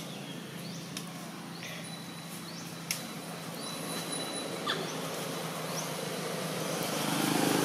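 Outdoor background noise: a steady hiss and low hum with a few short, quick falling chirps and faint clicks scattered through. A thin, steady high whine sets in about two and a half seconds in, and the noise grows louder toward the end.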